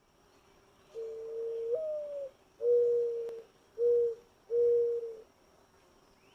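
Mourning dove singing its song: a long first coo that jumps up in pitch and slides back down, then three steady, lower coos.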